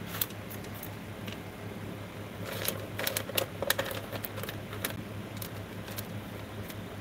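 Light clicks and taps of copper-foiled sea glass pieces being handled and pressed into place on a cat figurine, clustering about two and a half to five seconds in, over a steady low hum.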